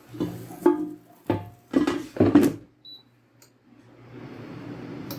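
Clatter of the air fryer basket being handled, a short high electronic beep about three seconds in, then the air fryer's fan starting up with a steady whoosh that grows louder.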